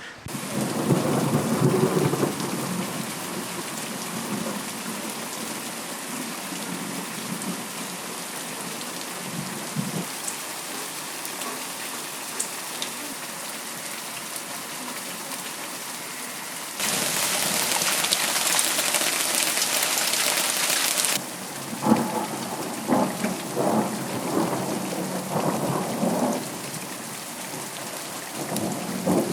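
Thunderstorm: heavy rain pouring steadily, with rolls of thunder near the start and again a little past twenty seconds. A harder, louder downpour cuts in sharply for about four seconds in the middle.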